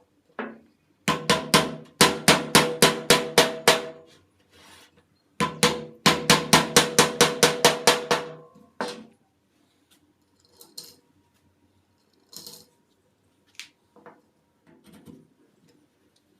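Two runs of rapid, evenly spaced metallic knocks with a ringing tone, about five a second, each lasting around three seconds; then a few scattered light clicks and knocks.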